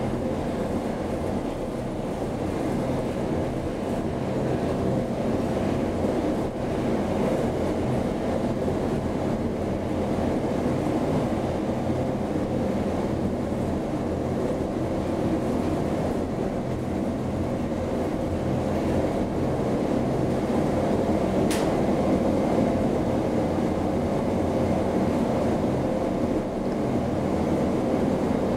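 1994 Thyssen inclined elevator running along its sloped track, heard from inside the cab: a continuous low hum and rumble of the drive and running gear. A single sharp tick comes about three-quarters of the way through.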